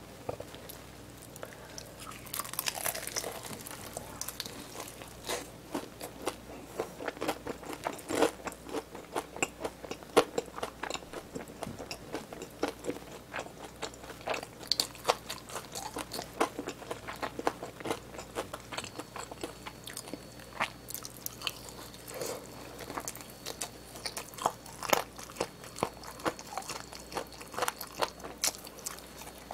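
Close-miked biting and chewing of a seasoned, crisp-coated fried chicken drumstick, the coating crunching between the teeth in many irregular crisp bites and chews.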